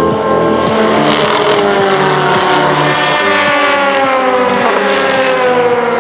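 Race car engine going by at speed, its note falling steadily in pitch over several seconds as it passes.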